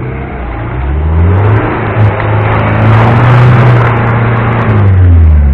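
Mitsubishi L200 pickup's engine revving hard under load as it pulls through deep mud ruts: the pitch rises about a second in, holds high, and drops away near the end.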